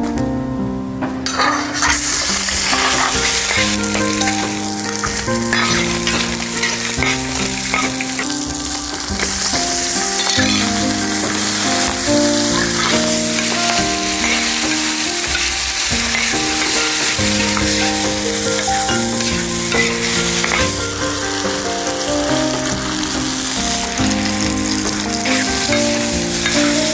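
Food sizzling hard in a hot pan of oil while being stirred, the sizzle setting in about two seconds in and continuing steadily.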